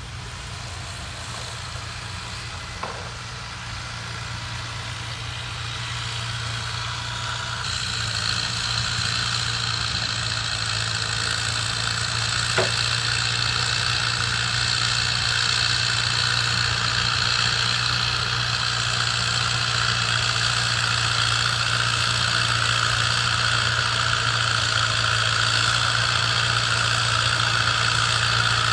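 A small engine running steadily with a low hum, growing louder over the first several seconds and then holding even.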